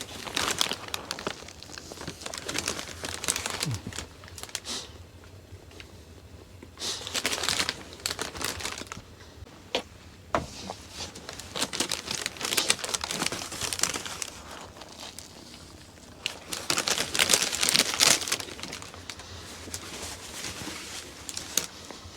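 Paper sandwich wrapper crinkling and rustling as it is handled, in about four bouts separated by quieter pauses.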